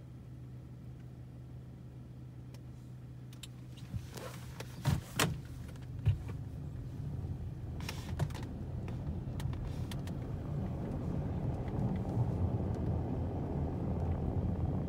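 Car engine idling with a steady low hum. About four seconds in there are several sharp knocks and clicks, then a rushing noise that rises and builds toward the end.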